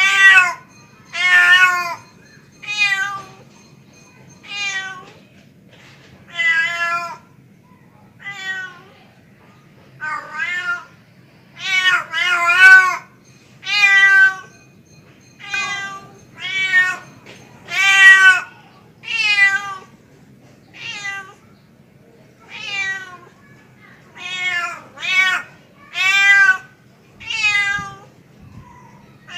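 Male domestic cat calling for a mate: a long run of drawn-out meows, one every second or two, each wavering up and down in pitch.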